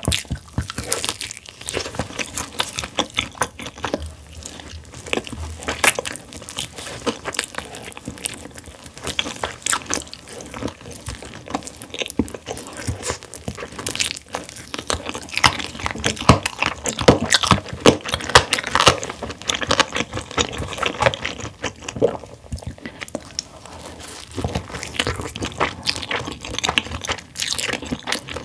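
Close-miked eating sounds of a person biting and chewing roasted chicken wings coated in spicy Buldak sauce: wet, sticky mouth clicks and smacks in a dense, uneven stream.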